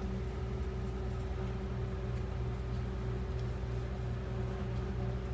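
A steady low machine hum, holding one even pitch with a faint hiss above it.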